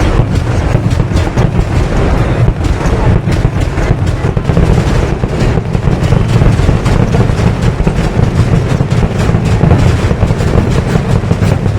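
A dense, continuous barrage of firecracker explosions going off in rapid, irregular succession over a heavy low rumble. It is very loud throughout, with no break.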